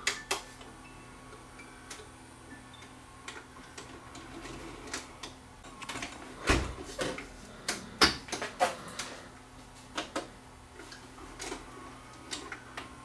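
JVC HR-S7200 S-VHS VCR tape mechanism, running with its cover off, clicking and clunking irregularly as it loads a cassette and threads the tape into play. A heavier thump comes about six and a half seconds in, then a quick run of clicks a little later, over a faint steady hum.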